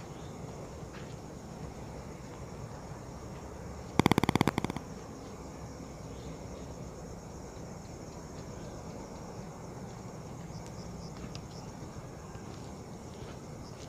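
Night outdoor ambience: a steady hiss with faint high-pitched insect chirping. About four seconds in there is a brief loud rattle of rapid clicks, lasting under a second.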